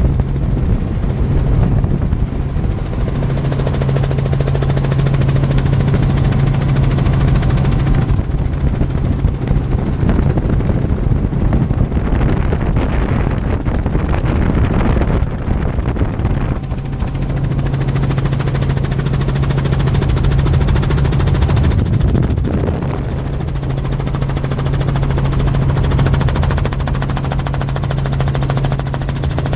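Helicopter in flight heard from inside the cabin: a steady, loud drone of rotor and engine with a thin high whine over a deep hum, the whine easing for a stretch in the middle.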